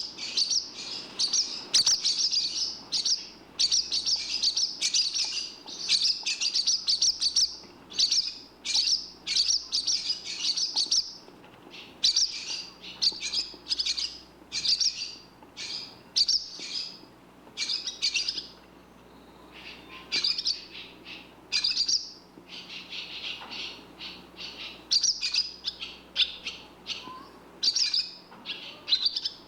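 Barn swallows calling: rapid twittering chirps in short bouts, high-pitched, with brief pauses between bursts.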